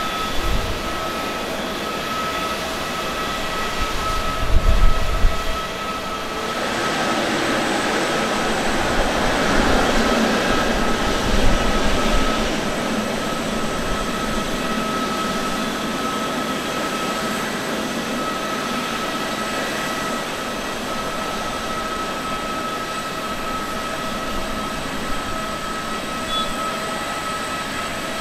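GE90 jet engines of a Japan Airlines Boeing 777-300ER at taxi power: a steady whine with several high tones. A few low thumps come about four seconds in, and a rushing noise then swells, is loudest around ten seconds in and settles back over a few seconds.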